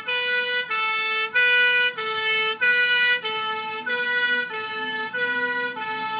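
Two-tone siren of a Land Rover fire appliance, switching back and forth between a high and a low note, each held a little over half a second.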